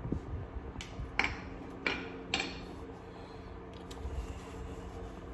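Four light metallic clinks of a roller chain and its master link parts being handled during removal, with a steady low hum underneath.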